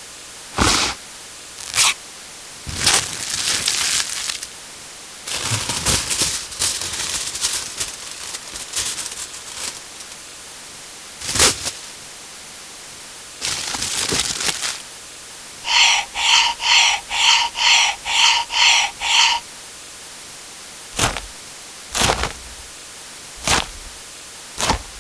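A run of separate kitchen-utensil sound effects: sharp clicks and knocks, a few longer scraping, rustling stretches, and a string of about nine quick electronic beeps in the middle, like a kitchen appliance's alert. Near the end come single short knocks.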